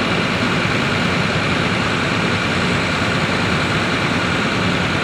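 Diesel engines of heavy earthmoving machinery running steadily, with no distinct knocks or changes.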